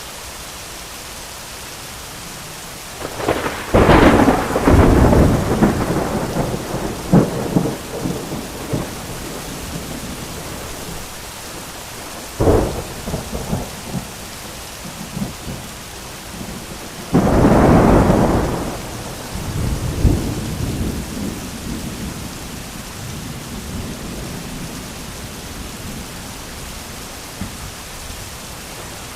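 Steady medium rain with three thunderclaps: a long crack and rumble about three seconds in, a short sharp crack near the middle, and another loud clap a little past halfway, its rumble dying away over several seconds.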